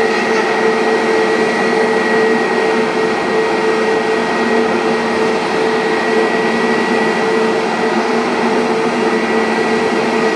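Airbus A350-900's Rolls-Royce Trent XWB turbofans at taxi power: a loud, steady rush of jet noise with a constant high whine and a lower hum.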